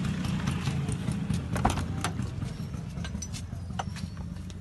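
Car engine idling with a steady low rumble, with scattered irregular clicks over it.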